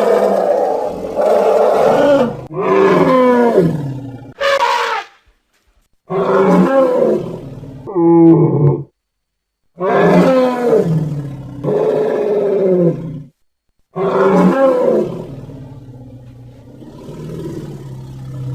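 Woolly mammoth sound effect: a series of about seven loud roaring calls, each bending in pitch, separated by short pauses. One brief, higher call comes about four seconds in, and the last call trails off into a low rumble near the end.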